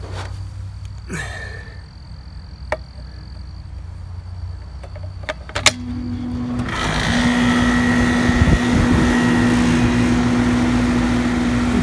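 Central air conditioner's outdoor condenser unit switching on about halfway in with a click, then its compressor and condenser fan starting and running with a steady hum under a rising rush of fan air. It starts easily off a portable generator thanks to a soft starter.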